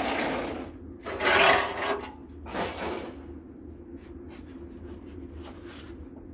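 Three rough scraping noises, the second one the loudest, about a second and a half in, over a steady low hum.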